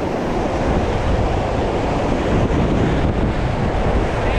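Ganges river water rushing steadily, with wind buffeting the microphone as a deep rumble.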